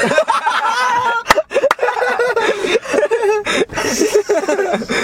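Several young men laughing hard together in high, wavering bursts, with two sharp smacks about a second and a half in.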